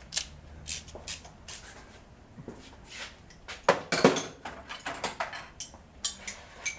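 Metal hand tools and sockets clinking and knocking as they are handled, with a louder clatter about four seconds in.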